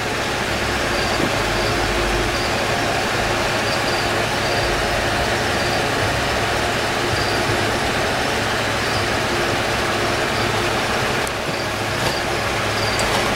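Steady machine-like hum with a hiss behind it and a few faint high blips now and then; it dips briefly near the end.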